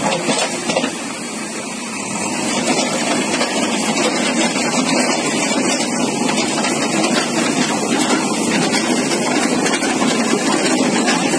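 A JCB backhoe loader's engine running steadily, growing louder about two seconds in.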